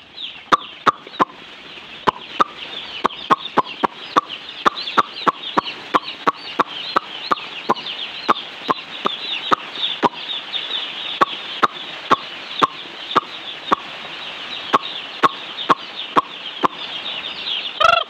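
A large flock of young chicks peeping continuously in a high chorus. Sharp clicks sound over it, coming unevenly at about two or three a second.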